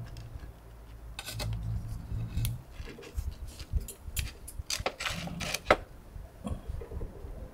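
Pizza being torn apart by hand on a wooden plate: a run of small cracks, scrapes and taps of crust and fingers against the plate, with one sharper click about five and a half seconds in.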